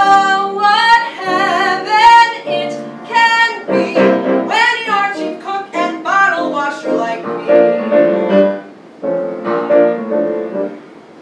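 A woman's singing voice holding a note with vibrato over piano accompaniment, then the piano playing on alone in an instrumental break.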